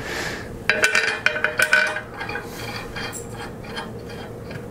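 Steel socket-head cap screws clinking against a steel mounting plate as they are dropped into its holes by hand: a quick run of sharp metallic clinks with brief ringing about a second in, then a few fainter clicks.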